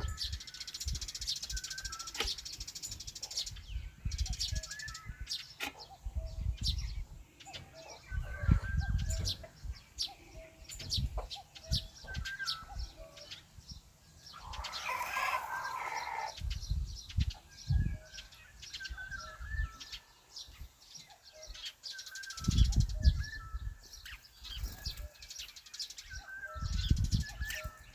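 Birds chirping again and again in short calls, with one louder, harsher call lasting about a second and a half midway. Scattered low thumps and clicks run underneath.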